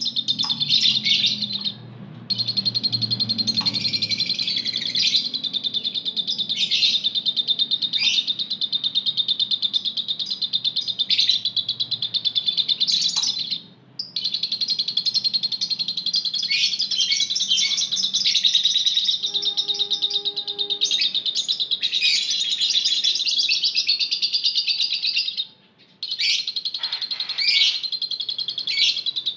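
A flock of Fischer's lovebirds kept together in one cage, chattering and chirping without pause in a dense, high-pitched, rapid twitter. The twitter drops out briefly three times: about two seconds in, halfway, and near the end.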